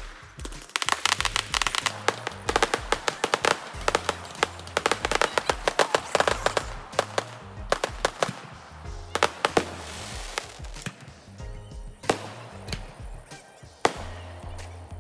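Fireworks crackling and popping: a dense run of rapid cracks for about six seconds, then scattered pops with two louder bangs near the end. Music with a steady bass beat plays underneath.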